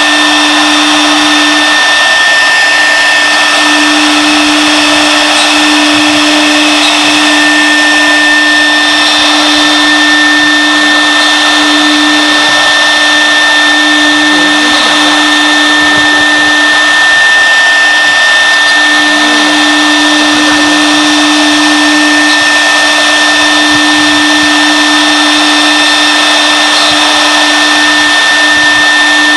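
Wood CNC router's spindle running while its bit cuts a shape into a wooden board: a steady high whine over a continuous rushing hiss, with a lower hum that drops out and returns every few seconds.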